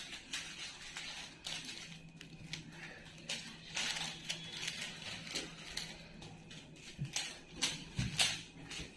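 Rubik's cubes being turned fast by hand: a rapid, irregular clatter of plastic layers clicking, with a couple of soft knocks near the end.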